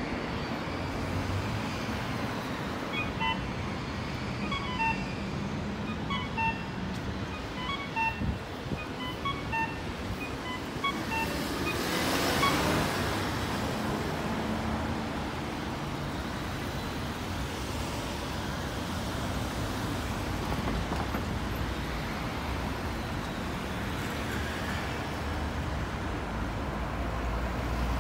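Electronic beeping from an accessible pedestrian crossing signal: short pitched beeps, about two or three a second, for some eight seconds over street traffic. Then steady city traffic, with a vehicle passing close by about twelve seconds in.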